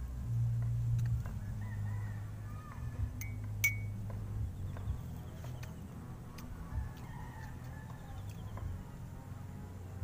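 Roosters crowing in the distance over a low steady rumble, with a few sharp clinks of a metal spoon against a small jar, the loudest about a third of the way in.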